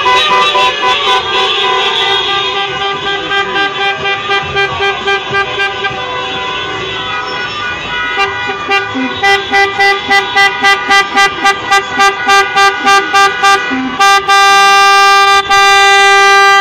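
Many car horns honking at once in overlapping steady blasts. From about nine seconds in, one horn beeps in a fast, even rhythm of about three beeps a second. Near the end it gives way to a long, unbroken blast.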